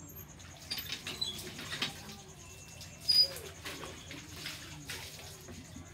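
Light clinks and taps of a scoop against a steel mixing bowl as puto batter is scooped out and poured into small cups, the sharpest clink about three seconds in.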